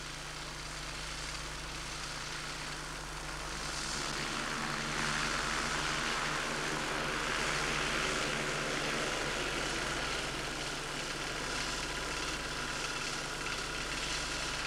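Konig SD-570 four-cylinder two-stroke engine and three-bladed wooden propeller of a homebuilt Maya ultralight running as it taxis, steady in pitch and growing louder about four seconds in.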